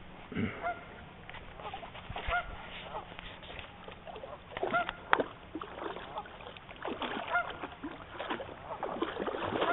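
Geese on the water honking over and over, many short calls overlapping, directed at the people and dogs on the bank.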